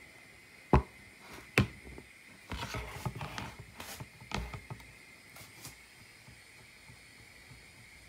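Plastic laundry basket knocked twice sharply, about a second and a second and a half in, then a couple of seconds of clattering and scraping as it is handled while drainage holes are melted through its bottom with a heated metal rod.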